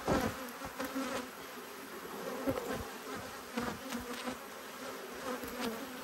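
Honeybees from an upset, defensive colony buzzing around an open hive: a steady hum from many bees in the air. A few light knocks as a wooden frame is lifted out.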